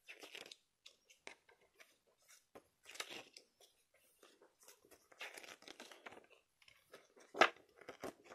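Pages of a glossy paper booklet being turned by hand: short papery rustles and flicks every second or two, the loudest a sharp flick about seven seconds in.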